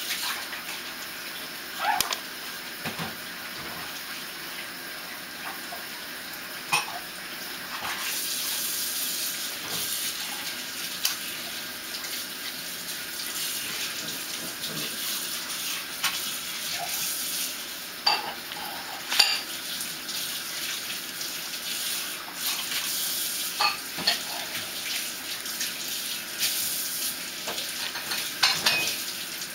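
A ragdoll cat crunching dry kibble: irregular sharp crunches and clicks as it bites and chews the pellets from a plastic bowl. A steady hiss sits behind it and grows louder about eight seconds in.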